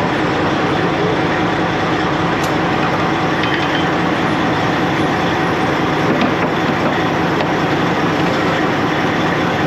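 Semi truck with a Detroit diesel engine running down the road: a steady drone of engine hum mixed with road and tyre noise, unchanging throughout.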